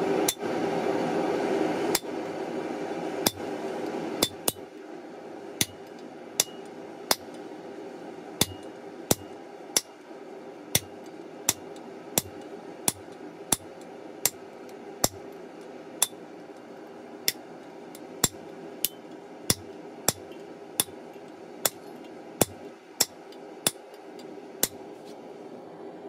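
Hand hammer striking a top tool held on a red-hot mild steel bar at the anvil: a steady run of sharp metallic blows, about one and a half a second. A steady rushing noise lies underneath, louder for the first four seconds or so, then dropping away.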